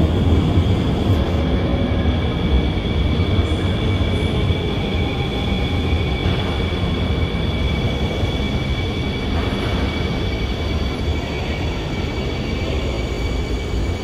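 C751B metro train running slowly alongside the platform as it draws into the station: a steady low rumble with two steady high whines above it. It eases off slightly toward the end as the train slows.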